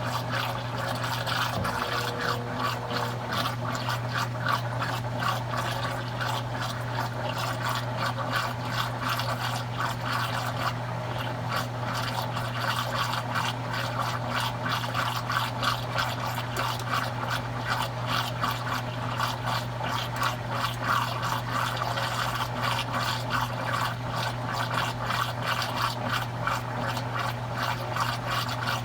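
Consul Cargo 8 kg washing machine running with water: a steady low hum under a continuous busy rush of water moving in the tub.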